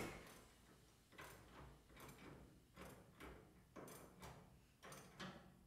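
Near silence with faint, irregular light ticks, about two a second.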